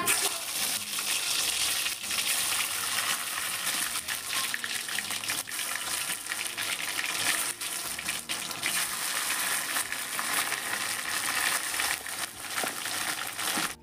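Whole boiled potatoes deep-frying in hot oil in a karai: a steady, dense sizzle full of fine crackles and spits. It begins as the first potatoes are slipped into the oil.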